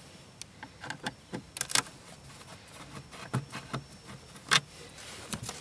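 Screwdriver undoing the screws of a plastic under-dash storage compartment: scattered small clicks and clacks of metal on plastic, with a couple of louder knocks around two seconds in and again past four seconds.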